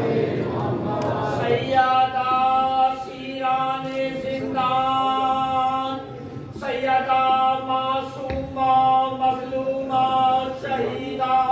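A crowd chanting salawat together for about the first two seconds, then a single voice singing long, steady held notes in short phrases, opening a manqabat recitation.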